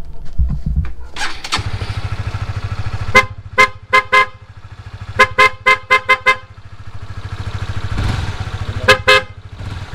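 Newly installed PIAA OTO-style aftermarket horn on a Honda CBR150R sounding a series of short, loud toots in three bursts, about a dozen in all, over the motorcycle's engine idling.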